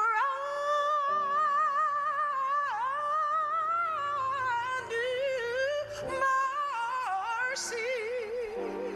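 A woman singing a gospel solo, holding long notes with wide vibrato and a short break about six seconds in, over sustained instrumental chords.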